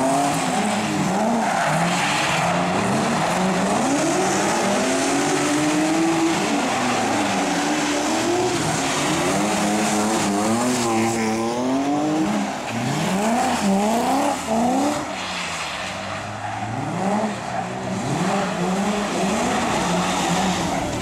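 Cars drifting, a BMW E30 among them: engines revving up and down over and over, with tyres squealing and skidding on the asphalt.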